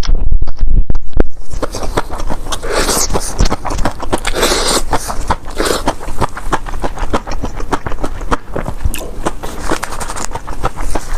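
Close-miked chewing of Buldak spicy noodles wrapped in liangpi (cold-skin noodles), with many wet mouth clicks and smacks. The first second or so is louder and muffled.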